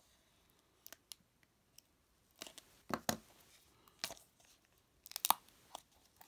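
A box cutter slitting the tape seam of a plastic gashapon capsule, then hands working the capsule open. Faint scattered scrapes, clicks and crinkles, with a few louder ones from about two and a half seconds in.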